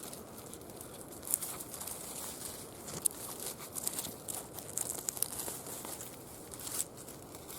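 Footsteps of a walker on the forest floor, an irregular series of crackling, crunching steps over a soft background hiss.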